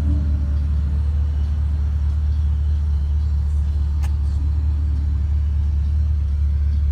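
Steady low rumble of the Holden Commodore SS-V's 6.0-litre V8 idling, heard from the cabin, with a single sharp click about four seconds in.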